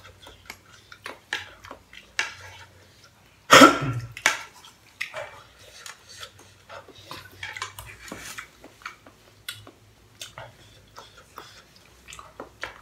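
Eating at a saucepan: a spoon and fork clicking and scraping against the pot, with chewing and mouth noises. One much louder burst of sound about three and a half seconds in.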